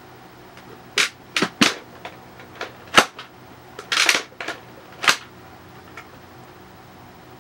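Sharp plastic clicks and clacks from the clear dust bin of a Dyson V8 Slim Fluffy cordless vacuum as it is being emptied, the bin lid coming open among them. About seven clicks over four seconds, the loudest about three seconds in and a short rattling cluster around four seconds in.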